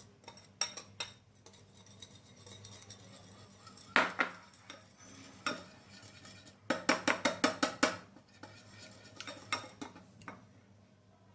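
A metal utensil beating egg batter in a bowl, clinking against the sides: scattered single clinks, one louder strike about four seconds in, then a quick run of about ten clinks.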